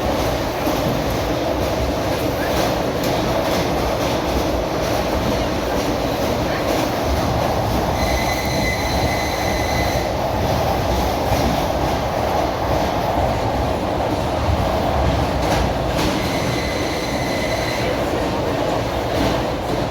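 Suburban electric train running on the rails, heard from inside the carriage: a steady rumble with wheels clacking over rail joints. Twice, about eight and about sixteen seconds in, a high steady tone sounds for about two seconds.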